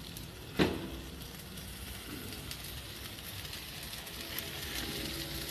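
Steak strips and sweet peppers sizzling on a gas grill's griddle plate, a steady hiss with light scraping ticks from a metal spatula. A single sharp metal clank sounds about half a second in.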